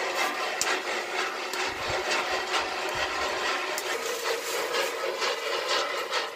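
Maize kernels roasting in a flat black metal pan over a wood fire, stirred and scraped with a stick: a steady dry rasping with many small ticks of kernels rattling against the pan.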